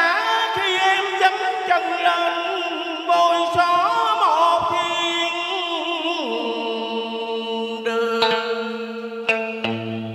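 Vietnamese cải lương stage music: a wavering melodic line over sustained accompaniment, which settles about six seconds in on a long held low note.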